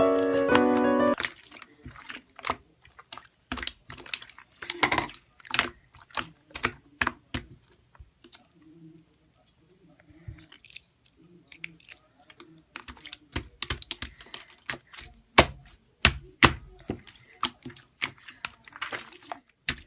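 Irregular clicks and taps of small things being handled, some sharp and loud, with a quieter stretch midway. Background music plays at the start and stops about a second in.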